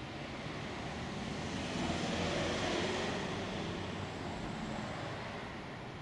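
A vehicle passing on a nearby road: a broad hiss of tyres and engine swells to its loudest about two to three seconds in, then fades away.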